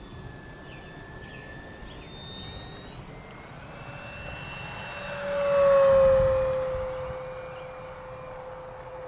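FMS 1500mm Cessna 182 RC plane's electric motor and propeller whining in a high-speed fly-by. It grows loudest about six seconds in, its pitch dropping as it passes, then fades away.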